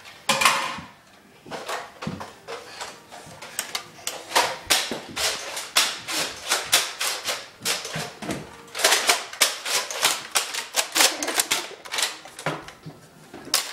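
Nerf foam-dart blasters firing in a rapid, irregular run of sharp clicks and snaps, several a second, densest about nine seconds in.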